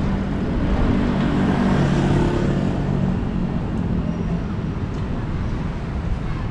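Wind buffeting the microphone of a moving action camera, with a low steady hum for about the first four seconds.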